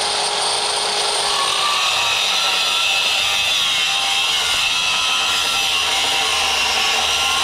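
Angle grinder running steadily, grinding away a raised metal edge on the milling machine's gearbox housing, a loud grinding with a high whine.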